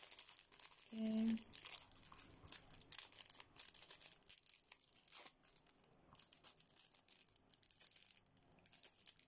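Clear plastic packaging bags crinkling and tearing in irregular crackles as small nail-art tools are pulled out of them by hand.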